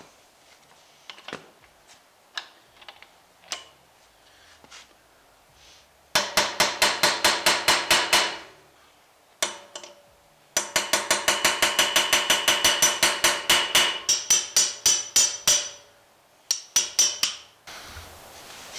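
A hammer tapping a bearing race into its bore in a GM 9.5-inch 14-bolt axle housing, metal on metal with a ringing clink. A few single taps come first, then quick runs of about six taps a second: a two-second run, a longer five-second run, and a short burst near the end.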